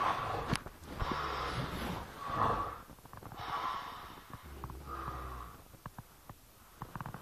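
A man snoring heavily in his sleep: about four loud rasping breaths, some with a low rattling vibration, growing quieter near the end with a few faint clicks.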